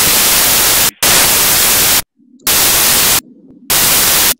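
Loud white-noise static in four blocks that start and stop abruptly, with short near-silent gaps between them. It is laid over the lecturer's voice to mask his words, bleeping out secret marked-card details.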